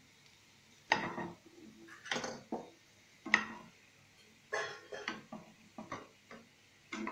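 Wooden spatula knocking and scraping against a frying pan and a steel plate while shallow-fried fish cutlets are lifted out of the oil, making a string of sharp, uneven clacks.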